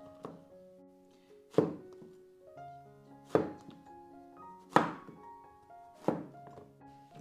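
Chinese cleaver chopping through a peeled gourd onto a wooden chopping board: four loud chops about a second and a half apart, with lighter knocks near the start and end. Background piano music plays throughout.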